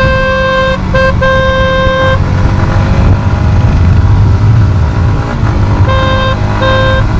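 A vehicle horn honking, one steady tone: several blasts in the first two seconds, then two more near the end. A motorcycle engine runs steadily underneath.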